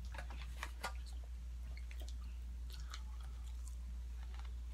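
Close chewing and crunching of fried food, with a cluster of crisp clicks and crunches in the first second and scattered smaller ones after, over a steady low hum.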